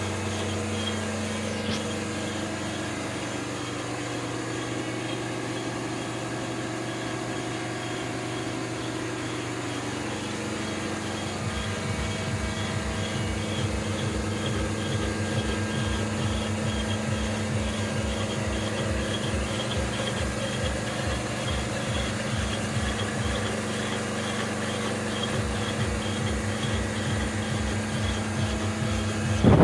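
Milling spindle on a CNC mill, driven by a variable-frequency drive, running steadily while face-milling a flat surface. About ten seconds in, the sound gets a little louder and a rapid low pulsing comes in.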